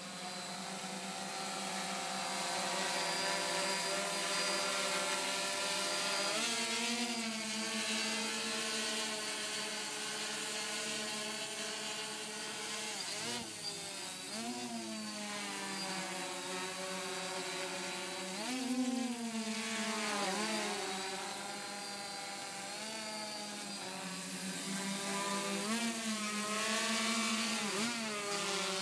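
DJI F550 hexacopter's six brushless motors and propellers buzzing steadily as it hovers and manoeuvres. The pitch dips and rises several times as the motors change speed to correct and move the craft.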